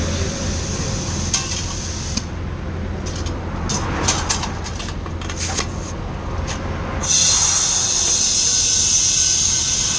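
Roadside vehicle noise: a steady low engine hum with a few short knocks in the middle, then a loud, even hiss starting about seven seconds in.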